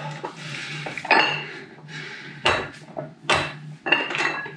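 Metal plates of a plate-loaded dumbbell clinking against each other as it is swung through the reps, about five sharp clinks at an uneven pace.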